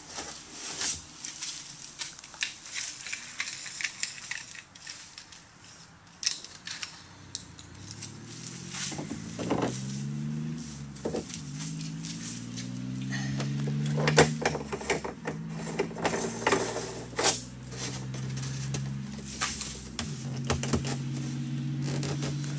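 Sandpaper rubbing around the edge of a hole cut in a plastic stock tank wall, a scratchy hiss with many small clicks. Then come clicks and knocks as a white plastic bulkhead fitting is handled and seated in the hole. From about eight seconds in, a low droning hum joins, wavering in pitch.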